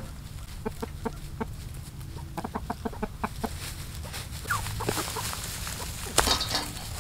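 Hens clucking: a quick run of short clucks, then a falling call. A sudden loud knock comes about six seconds in.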